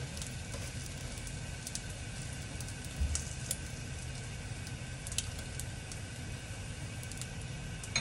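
Egg-dipped bread frying in oil in a non-stick wok: a steady sizzle with scattered small pops and crackles, as a silicone spatula pushes the slices around. A dull knock about three seconds in.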